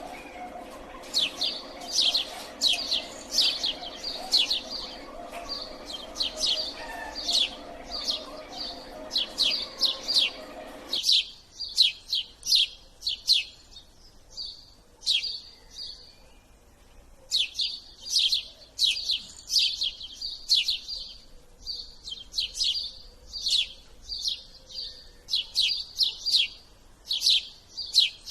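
A bird chirping over and over, short sharp chirps a few times a second. Under it a steady hum stops suddenly about eleven seconds in.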